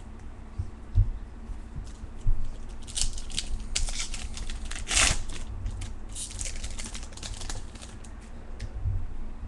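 Trading cards being handled and flicked through, with a run of quick clicks and rustles in the middle, loudest about halfway through. A few dull thumps come before and after the run.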